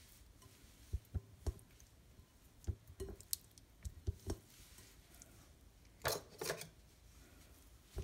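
Raw chicken drumsticks being handled and set down in a glass bowl: a series of short, soft knocks, with a brief rustling scrape about six seconds in.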